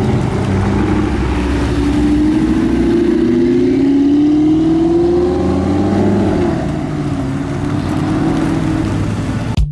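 Audi R8 supercars driving slowly past, their engine note rising as one accelerates a couple of seconds in, over a steady deep engine hum.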